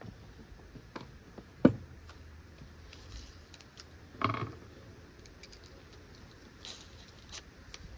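Small clicks and rattles of a cordless drill, loose screws and a drill bit being handled, with one sharp knock a little under two seconds in and a short rustle about four seconds in.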